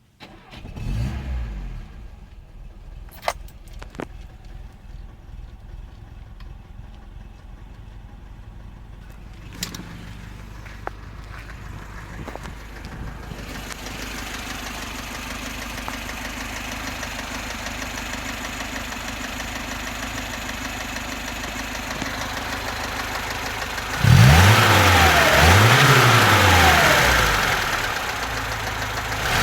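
VAZ-2101 (Zhiguli) four-cylinder engine idling with a knock that the owner hears from under the valve cover, cold or hot, though the valves are adjusted and the oil pressure is good. It is blipped twice near the end, the pitch rising and falling, then settles back to idle. A few sharp clicks come in the first ten seconds.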